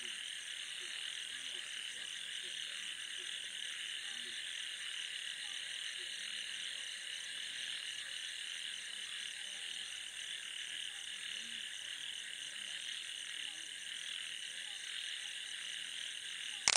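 Steady night chorus of many frogs calling together in a dense, unbroken din, with a fainter, higher pulsing trill above it. It ends in a sudden click as the sound cuts off.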